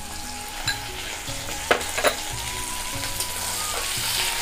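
Sliced onions frying in mustard oil in a metal kadai, sizzling steadily and growing louder toward the end. A flat metal spatula stirs them, clicking against the pan a few times.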